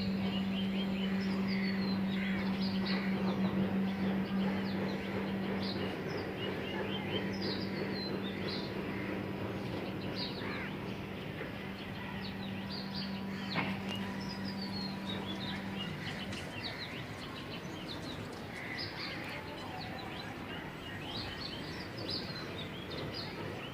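Many small birds chirping and calling, some in quick falling series. Beneath them runs a steady low hum that stops about two-thirds of the way through.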